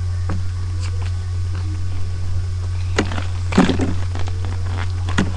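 Steady low hum throughout, with scattered clicks and rustles of Pokémon cards being handled; the busiest, loudest handling comes about three to four seconds in.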